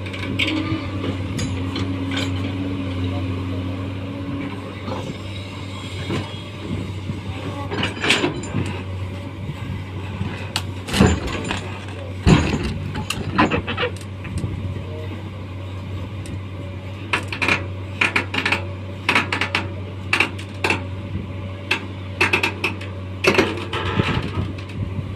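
Excavator's diesel engine running steadily, with irregular sharp knocks and clanks of the machine at work, coming thicker in the last several seconds.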